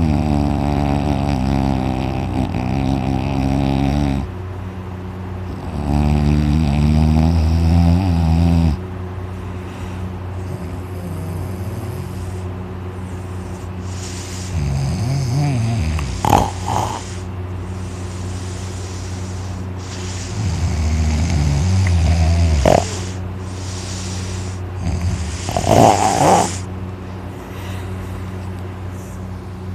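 A man snoring loudly in deep sleep. Two long, heavy snores come in the first nine seconds, then softer snores every few seconds, with a few short, sharp sounds between them in the second half.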